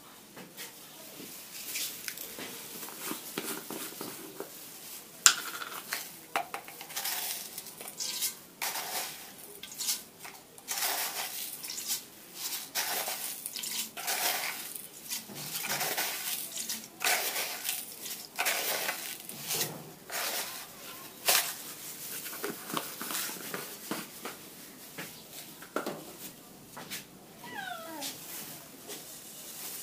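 Hands in thin plastic gloves crumbling and rubbing pieces of leftover flatbread over a steel bowl: a run of crinkling, rustling strokes, with crumbs falling into the bowl. A few short gliding squeaks come near the end.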